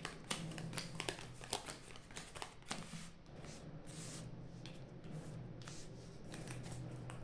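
Playing cards being dealt one at a time onto piles on a table, a quick run of light slaps and flicks. They are close together for the first three seconds or so, then come sparser, over a low steady hum.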